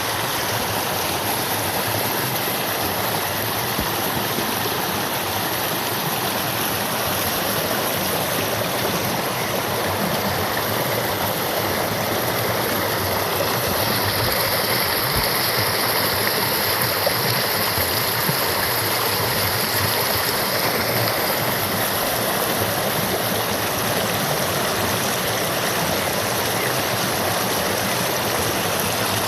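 River water rushing and gurgling steadily.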